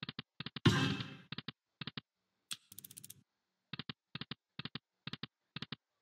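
Online slot machine game sound effects: crisp reel clicks in quick pairs and threes as the reels spin and stop, with a louder burst about a second in and a brief rattle as a new spin starts midway.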